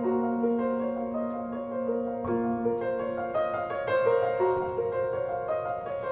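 Instrumental break in a song: piano playing sustained chords and a slow melody, without singing.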